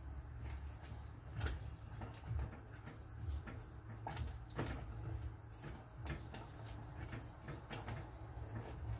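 Silicone spatula stirring a saucepan of thick brigadeiro mixture, with irregular scrapes and light knocks against the pan, over a steady low hum. The brigadeiro is being cooked toward piping consistency.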